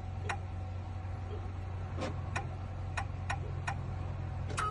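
About seven sharp clicks at uneven spacing, like buttons being pressed one by one while entering a key code, over a steady low hum.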